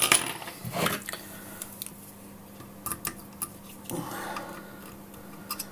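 Light metallic clicks and taps of small hand tools, pliers and a soldering iron, working at a wire jumper on a circuit board during its removal; the clicking is busiest in the first second, with a brief soft scraping noise about four seconds in. A faint steady low hum runs underneath.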